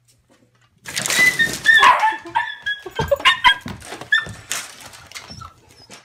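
Two dogs play-fighting: a burst of high-pitched yips and barks starts about a second in, mixed with knocks from their scuffling, and dies down near the end.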